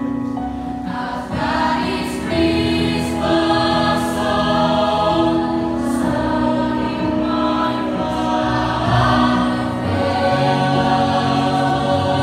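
Mixed high-school choir of girls' and boys' voices singing in harmony, holding long chords, with a low part sounding strongly near the end.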